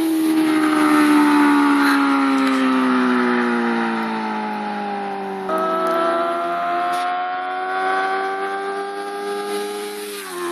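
Yamaha YZF-R6 inline-four engine running through an Arrow full exhaust with the dB killer removed. The engine note falls slowly over the first half, jumps up suddenly about halfway through, then climbs gently.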